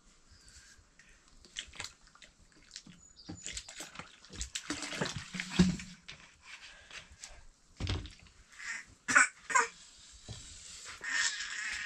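Water splashing and pouring, with scattered knocks and clatters, the loudest about five and nine seconds in.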